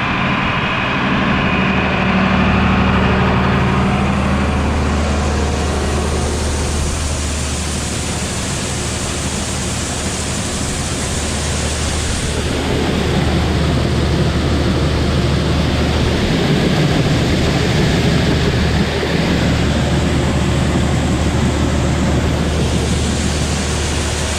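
Diesel farm machinery running steadily, with a loud steady rush of shelled corn flowing through the grain-handling equipment; the hiss of the grain comes in a few seconds in and shifts abruptly twice.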